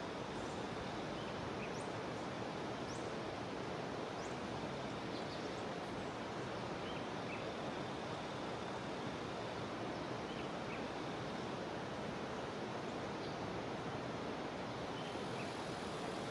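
Jungle river water rushing in a steady, even stream, with scattered short, high chirps from small animals above it.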